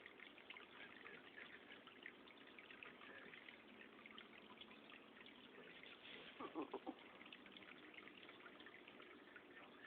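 Near silence: faint crackling room tone, with one brief faint sound about six and a half seconds in.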